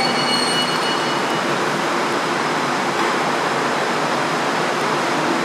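Seoul Metro Line 3 electric train pulling into the platform: a steady rumble and hiss of steel wheels on the rails, with faint high whines dying away in the first second and a half.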